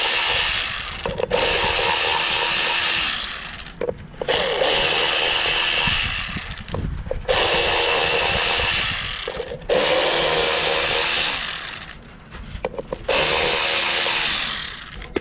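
Electric drill/driver spinning out the rear sprocket's 5 mm bolts one after another: about six runs of two to three seconds each, the motor speeding up at the start of each run, with short pauses between.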